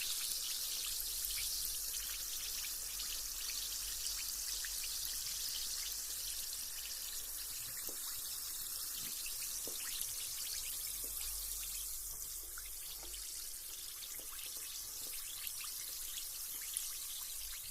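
Carbonated bath bomb fizzing in bath water: a steady high hiss of bubbles with many tiny crackling pops.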